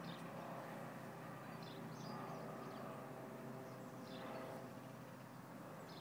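Faint outdoor ambience: small birds chirping now and then, a handful of short high chirps, over a steady low background rumble.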